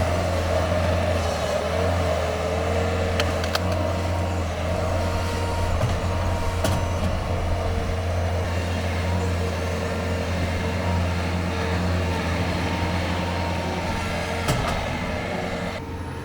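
Bobcat tracked skid steer's diesel engine running steadily under work as it scoops muck from a muddy patch, with a steady whine over the engine hum and a few sharp clanks. The sound drops off a little near the end.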